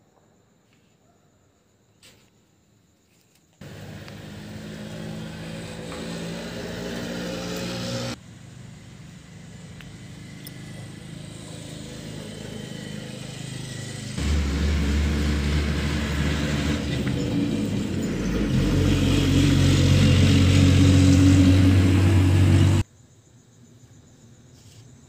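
An engine running close by, with a deep steady hum, starting abruptly after a few seconds of near silence. It changes character suddenly twice, grows louder, and cuts off abruptly near the end.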